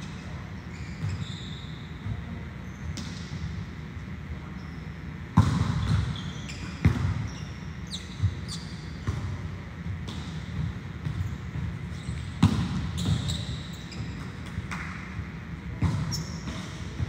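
Volleyballs being struck and hitting the floor during serve-receive drills: sharp slaps and thuds every few seconds, each with a short echo. The loudest hits come about five and a half and twelve and a half seconds in.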